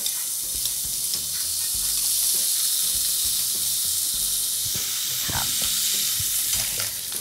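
Bacon pieces sizzling steadily as they fry in hot palm oil in a stainless steel frying pan. A few light clicks of metal tongs against the pan come in the second half.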